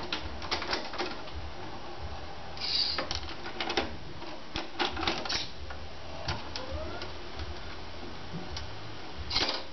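VHS video recorder's tape mechanism clicking as it changes modes: clusters of sharp mechanical clicks, a few single clicks, and two short hisses, one a few seconds in and one near the end, over a faint steady hum.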